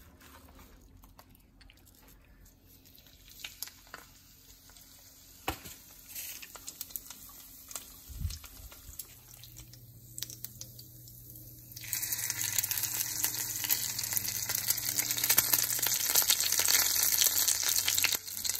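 A breaded whole fish frying in hot oil in a frying pan, sizzling loudly from about twelve seconds in, after a quieter stretch of light clicks and taps.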